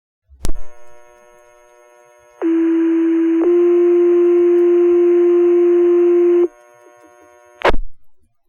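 Fire department two-tone sequential radio page alerting the volunteer firefighters' pagers. The transmitter keys up with a click. A steady tone holds for about a second, then steps straight into a second tone held about three seconds, and the transmission ends with a click.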